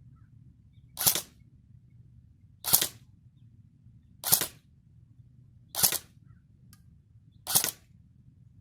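Electric airsoft rifle firing five single shots on semi-auto, each a short sharp crack, spaced about one and a half to two seconds apart.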